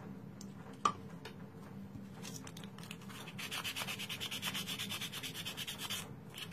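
A lint-free wipe soaked in nail cleanser scrubbed quickly back and forth over a cured acrylgel nail, wiping off its sticky inhibition layer. The strokes start about two seconds in and stop near the end.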